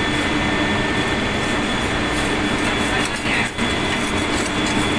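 Engine-room machinery running: a loud, steady drone of noise with a few constant high tones on top.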